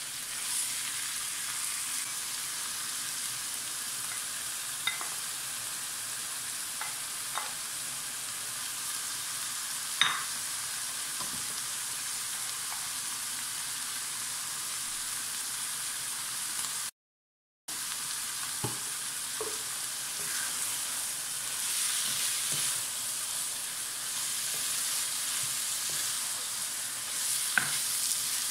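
Minced meat with onions and tomatoes frying and sizzling steadily in a pan, stirred with a spatula that scrapes and knocks against the pan a few times. The sound cuts out for a moment a little past the middle.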